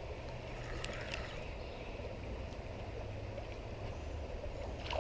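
Steady rush of a flowing creek, with a few faint clicks about a second in.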